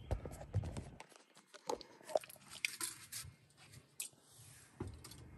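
Handling noise from a camera being taken off its mount and moved closer: a low rumble for about a second, then scattered small clicks and ticks.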